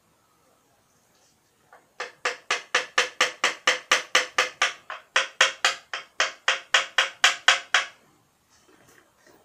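Hand ratchet wrench clicking in quick, even strokes on a motorcycle engine's bolts, about four clicks a second with a short break midway, stopping about two seconds before the end.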